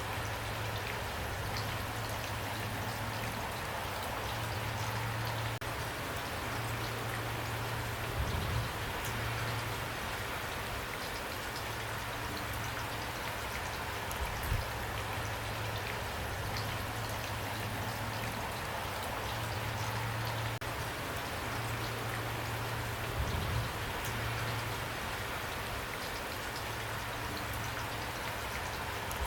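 Steady rain falling, an even hiss of many drops, with three louder low thuds spread through it.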